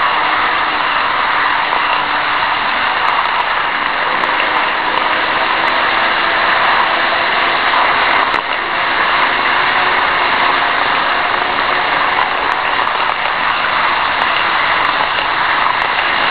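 N-gauge model trains running on the track, picked up close by a tiny keychain camera riding on a freight flatcar. A steady, loud running noise of wheels on rails, with a faint wavering motor whine underneath and a few light clicks.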